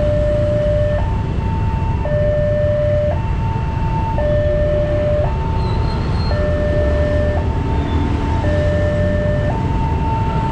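Railway level-crossing warning alarm sounding its electronic two-tone signal, switching between a low and a higher tone about once a second. Under it runs the low engine noise of motorcycle traffic crossing the tracks.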